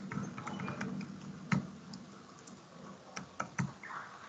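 Typing on a computer keyboard: scattered key clicks with short pauses between them, one louder click about a second and a half in and a few quick ones near the end.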